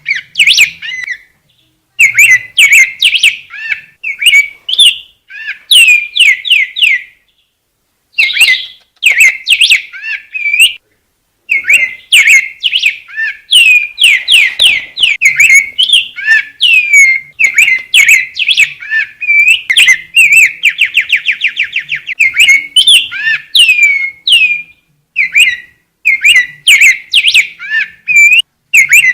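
Black-backed grosbeak (rey del bosque) singing: phrases of quick, downslurred whistled notes in bursts of a second or more, broken by short pauses. A fast even trill comes about twenty seconds in.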